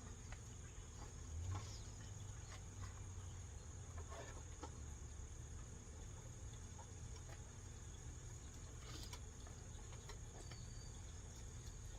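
A steady, high-pitched insect trill over a low outdoor rumble, with a few faint clicks.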